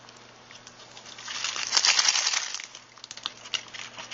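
Plastic wrapping crinkling as it is handled, loudest for a second or so in the middle, followed by a few light clicks and rustles.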